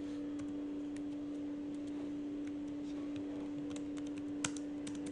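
Computer keyboard keystrokes: scattered single clicks, coming faster in the second half, over a steady low hum.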